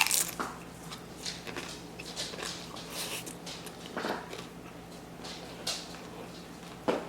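Close-up eating sounds: scattered short crunches and mouth noises from chewing loaded tortilla-chip nachos, with a sharp click at the start.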